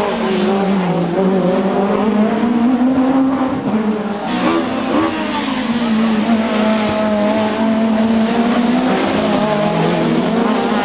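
British Touring Car Championship cars racing past close by at high revs, their engine note dipping and then climbing again several times as the cars come through the corner one after another.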